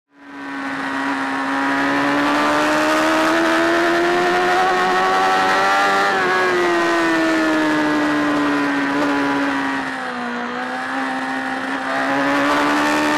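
BMW sports bike engine pulling hard at high revs, heard from the onboard camera with wind rush. The engine note climbs steadily for about six seconds. It then sinks gradually as the bike changes direction through the chicane, and picks up again about ten seconds in as the rider drives out.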